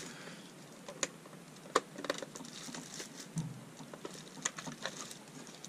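Scattered light clicks and taps from handling a plastic portable air cooler, a few irregular knocks spread over several seconds.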